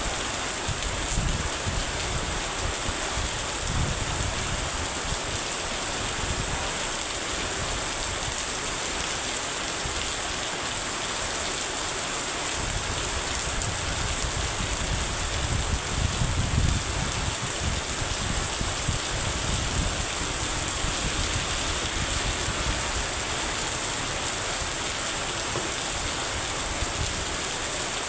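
Heavy rain falling steadily, a dense, even hiss with low rumbles that swell and fade underneath.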